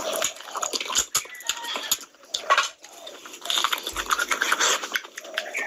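Close-up eating sounds: wet chewing and lip smacking on a mouthful of rice and curry, with many quick clicks and squelches and a quieter gap partway through.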